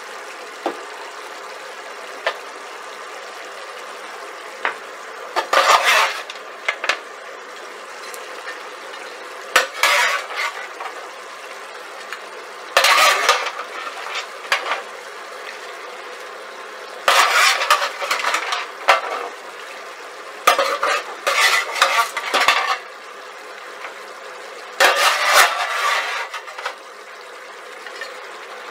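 A spoon scraping and clinking against a stainless steel pan as goat cubes are scooped into a pot of curry sauce, in about six bursts a few seconds apart. Under them runs a steady low sizzle from the sauce at a boil.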